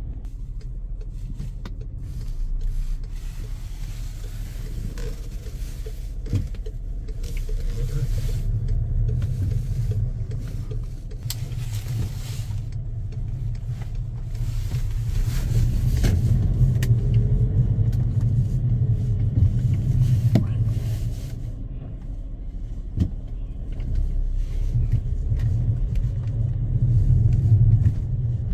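Road noise inside a moving car's cabin: a steady low rumble of engine and tyres. A faint tone rises twice, about halfway through and near the end.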